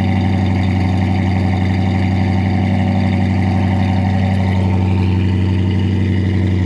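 New dual exhaust of a 1966 Ford Galaxie 500 running a rebuilt 289 Cobra V8 with an aftermarket cam and a Holley carburettor, idling steadily at the tailpipes.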